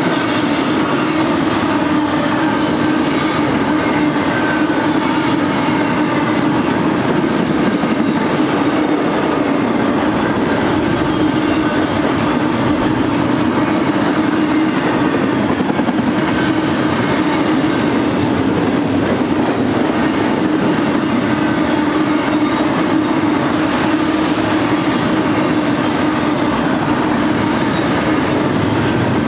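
Double-stack intermodal train's loaded well cars rolling past close by: a steady, unbroken noise of steel wheels on rail.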